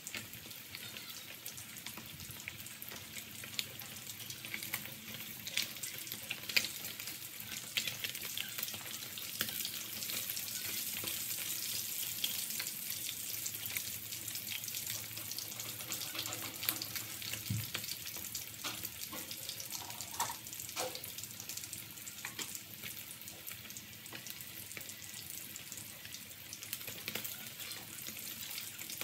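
Fish steaks deep-frying in hot oil in a metal wok: a steady sizzle with crackling pops, and a few knocks and clicks of metal tongs turning the pieces in the middle.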